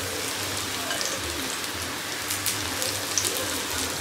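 Onion pakoras in chickpea-flour batter sizzling steadily as they deep-fry in hot oil in a kadhai, with scattered small crackles and pops.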